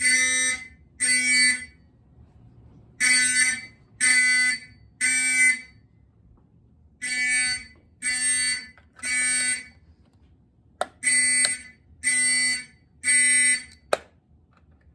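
Simplex 4051 fire alarm horn sounding the temporal-three evacuation pattern: three half-second buzzing blasts, a pause of about a second and a half, then three more, set off by pulling a manual call point. Sharp clicks near the end, the last just as the horn falls silent.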